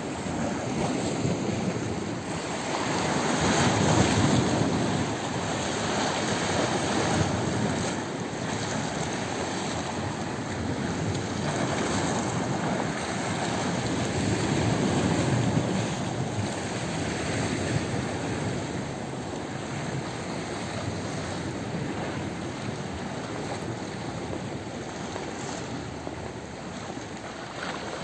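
Small Mediterranean sea waves washing against the rocks of a breakwater, swelling and easing every few seconds, with wind rushing on the microphone.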